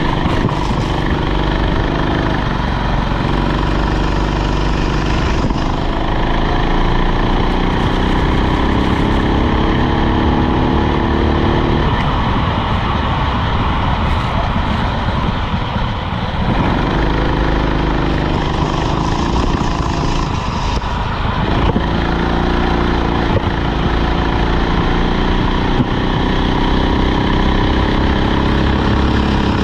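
Rental go-kart engine running under load, its note climbing steadily through long pulls and falling back as it slows, with longer drops about halfway through and again about two-thirds in before climbing again.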